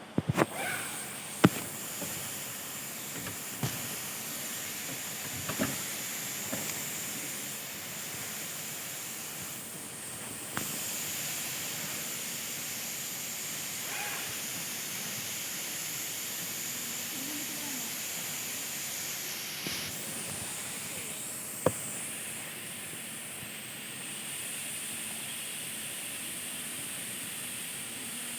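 Industrial overdeck (coverstitch) sewing machine running steadily with a high, even whirring hiss, its speed shifting a couple of times, with a few sharp clicks from the machine and fabric handling, the loudest about a second and a half in.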